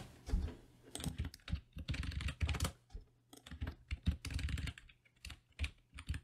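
Computer keyboard keys tapped in short irregular bursts, with backspaces and mouse clicks, as short names are typed and corrected.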